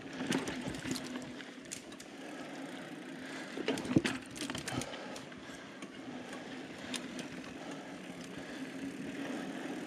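Mountain bike rolling down a dirt forest trail: tyre noise with a steady hum under it, and scattered rattles and clicks from the bike over bumps. A sharp knock about four seconds in is the loudest.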